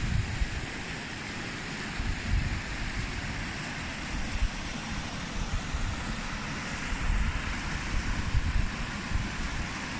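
Wind buffeting the microphone, an uneven low rumble over a steady rushing hiss.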